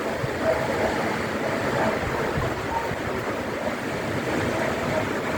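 Strong cyclone wind blowing steadily and rumbling on the microphone, with short faint whistles now and then.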